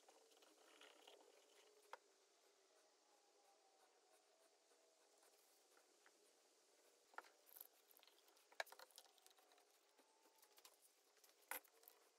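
Near silence, broken in the second half by a few faint clicks and taps as one-handed bar clamps are ratcheted tight onto a glued wooden box.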